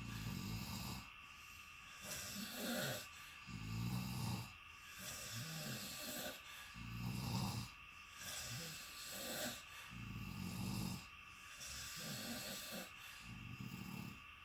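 Two people snoring in a shared room, their low, rasping snores overlapping and alternating so that a snore comes roughly every second or two.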